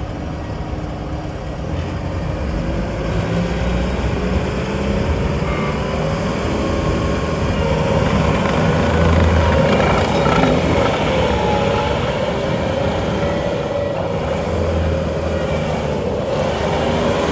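Bobcat T740 tracked skid steer loader's turbocharged four-cylinder Bobcat D34 diesel running steadily, with a whine that wavers up and down in pitch as the machine works.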